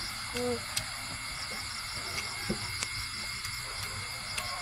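Steady chorus of night insects, several high shrill tones running on without a break, with a few faint clicks.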